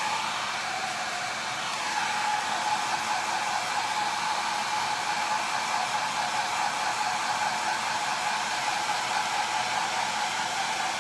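Handheld hair dryer blowing steadily, used to dry freshly applied chalk paste ink. It runs a little quieter for about the first two seconds, then steadies at full strength.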